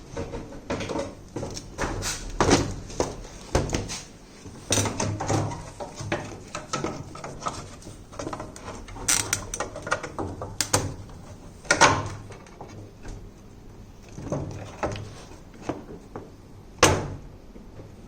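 Irregular clicks, knocks and rattles of hard parts being handled and worked on, with a few sharper knocks, one of the loudest near the end.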